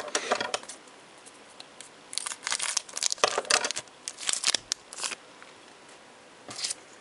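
A foil Pokémon booster pack wrapper crinkling and rustling in several short bursts as the pack is opened and the cards are pulled out.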